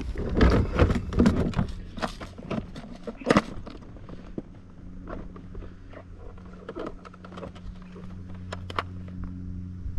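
Scattered clicks and knocks of fishing gear being handled aboard a kayak, thickest in the first couple of seconds. A low steady hum comes in about halfway.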